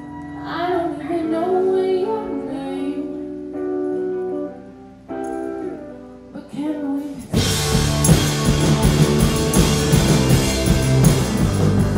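Live rock band music. A singer holds long notes over a quiet backing, then about seven seconds in the full band with drums comes in suddenly and much louder.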